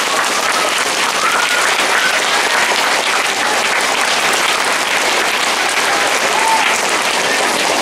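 Large audience of schoolchildren applauding steadily at the end of a choir song, with a few high cheers rising above the clapping.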